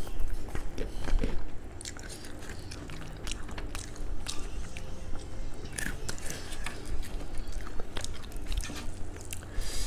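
A person chewing and biting McDonald's fried chicken at close range on a clip-on microphone, with irregular crunches and clicks of the crispy coating and meat.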